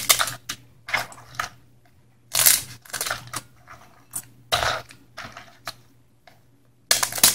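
Kitchen scissors crunching through blue crab shells, a string of short, irregular snips with pauses between them.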